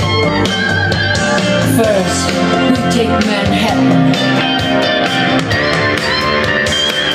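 Rock song playing back in a stretch between sung lines, with guitar to the fore over bass and drums.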